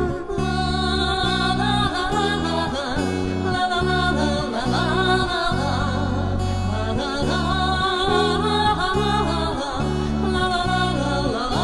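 Instrumental break of a song: guitar and bass guitar playing a steady accompaniment of regular bass notes, with a wavering melody line above.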